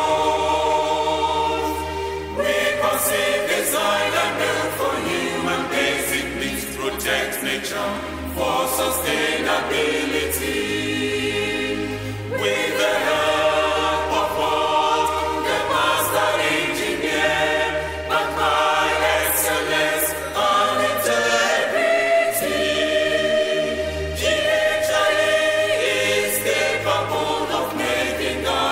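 A choir singing an institutional anthem in a hymn-like style, phrase after phrase with short breaks between lines.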